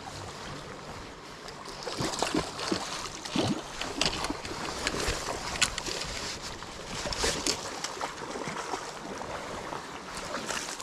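A hooked sockeye salmon splashing and thrashing in shallow river water as it is hauled to the bank, in irregular bursts over steady wind and river noise.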